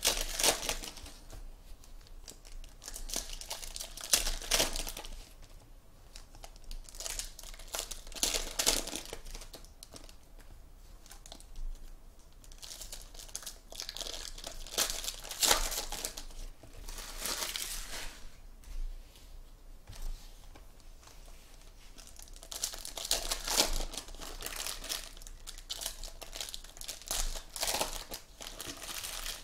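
Foil wrappers of Panini Contenders football card packs crinkling and tearing open, with cards being handled, in repeated bursts a few seconds apart.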